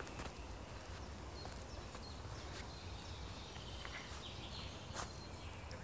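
Quiet woodland ambience: a steady low outdoor rumble with small birds chirping faintly, and a sharp tap about five seconds in.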